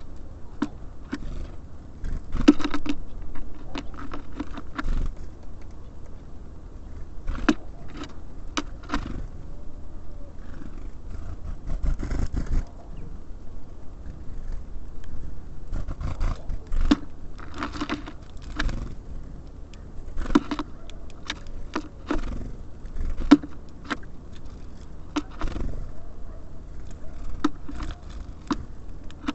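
Small birds at a bird feeder: irregular sharp taps, clicks and scratches from pecking at seed and hopping on the feeder, over a steady low rumble.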